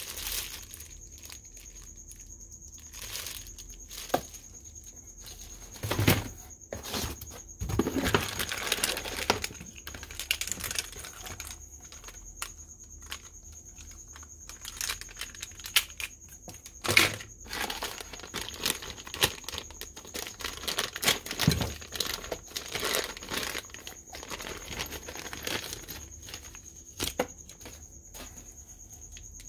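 Clear plastic packaging bags crinkling and rustling as they are handled and unwrapped, with scattered clicks and knocks of hard plastic tube cases and small parts being picked up and set down.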